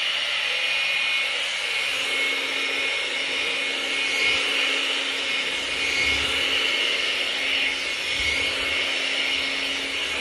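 Handheld hair dryer blowing steadily: a constant rush of air over an even motor hum.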